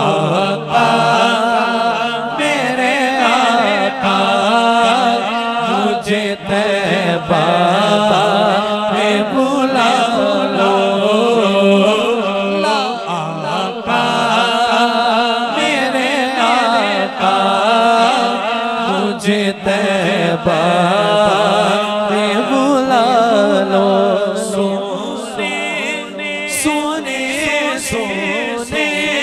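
A man's solo voice singing a naat, an Urdu devotional poem, through a microphone and PA in long, ornamented, wavering lines. A steady low drone runs beneath the voice.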